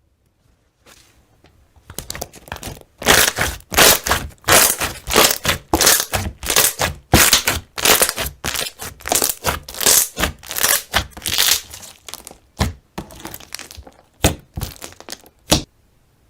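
Slime being squeezed and pressed by hand, giving a quick run of wet pops and crackles at about two a second, which die away near the end.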